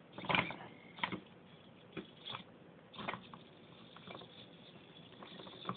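Small hobby servos in an Arduino-driven pan-tilt mount buzzing in short bursts, roughly once a second, as the mount turns to track a light.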